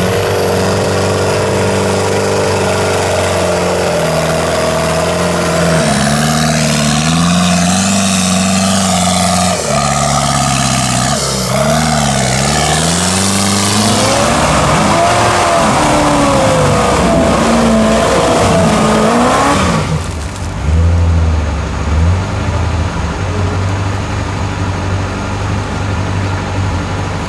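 Modified off-road 4x4's engine revving hard, its pitch rising and falling again and again. About twenty seconds in the higher noise drops away and the engine settles to a lower, steadier run.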